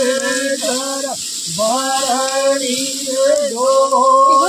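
Singing: one voice holding long notes, sliding between pitches with short breaks between phrases.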